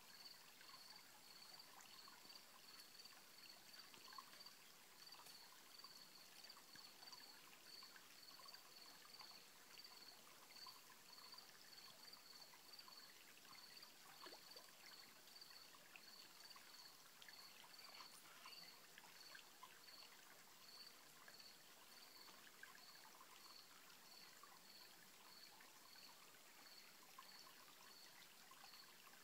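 Faint trickle of a rocky mountain stream, with a high-pitched chirp repeating evenly about twice a second.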